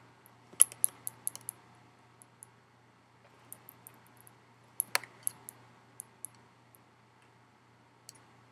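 Scattered small clicks and ticks of plastic boondoggle lace being handled and threaded through a loop, the sharpest about half a second in and around five seconds.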